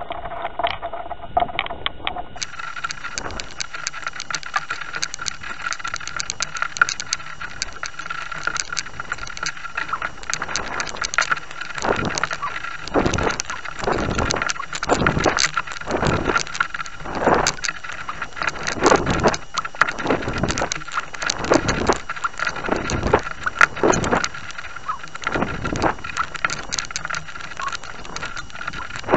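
Wind noise on a model rocket's on-board camera microphone as the rocket descends under its parachute, coming in irregular gusts that grow stronger and more frequent after about ten seconds, over a steady faint high whine.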